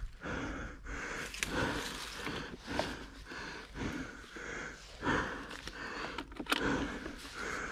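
A person breathing hard and fast through the mouth and nose, panting in a quick, steady rhythm of short puffs, out of breath from exertion.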